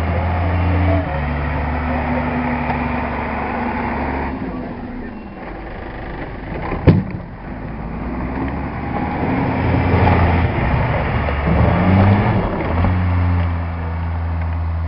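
Snowplow truck engine running steadily, getting louder and rising in pitch about two-thirds of the way through as it pushes snow. A single sharp knock comes about halfway.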